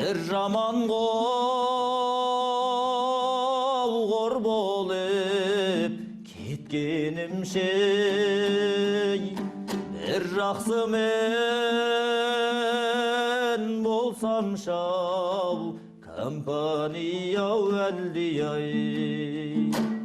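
Kazakh folk music: a voice singing long, held notes with vibrato in phrases of several seconds, over a steady low drone and plucked-string accompaniment.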